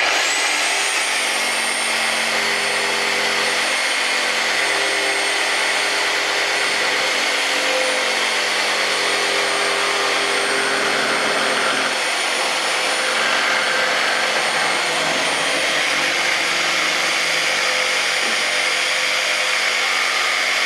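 Handheld power tool running steadily on white PVC pipe: a continuous motor noise with a high, steady whine.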